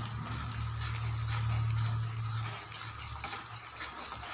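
Metal spatula scraping and stirring thick, simmering masoor dal in a steel kadai, irregular scrapes as the lentils are mashed smooth while the water cooks off. A low steady hum underneath fades out a little past halfway.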